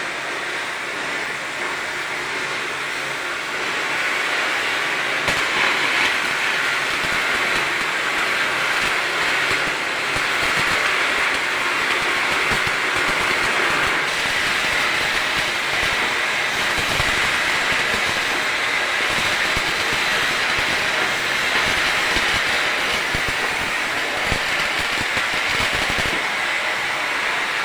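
Electric arc welding on a vertical 3F fillet joint: the arc runs with a steady crackling hiss that stays unbroken through the run and gets a little louder a few seconds in.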